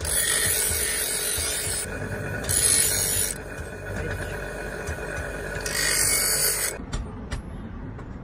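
A knife blank of old saw steel being ground on a motor-driven grinding wheel. There are three passes of loud hissing grind, with the wheel's steady running hum between them. The grinding stops a little before the end, leaving a few light clicks.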